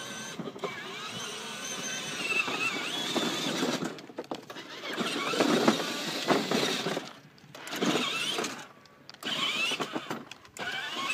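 Children's 6 V battery ride-on Mercedes SLS AMG (Qunxing QX7788) driving under radio control: its small electric drive motors and gearboxes running, cutting out briefly twice around the middle.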